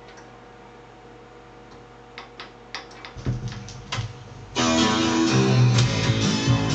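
Philips AG1016/22 record player: a faint steady hum, then the stylus setting down on a 45 rpm single with a scatter of clicks and crackles in the lead-in groove, and about four and a half seconds in the record starts playing loud guitar music.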